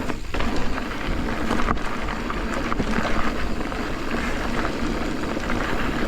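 Mountain bike riding along a dirt trail: tyres rolling and crackling over gravel, with scattered small clicks and rattles, and wind rumbling on the microphone.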